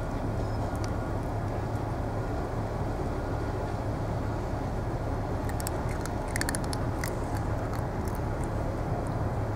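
A steady low engine rumble, like an idling vehicle, runs throughout. About five and a half to seven seconds in come scattered crisp little clicks, which fit cats crunching dry kibble.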